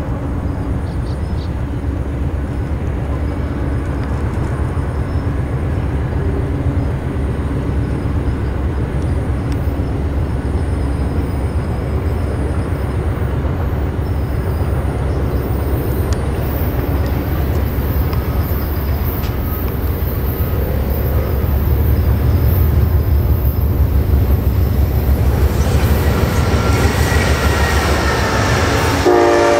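Two Amtrak GE Genesis diesel locomotives hauling a passenger train approach and pass close by, a deep engine and rail rumble that grows louder as they near. Near the end the locomotive's multi-tone air horn starts sounding.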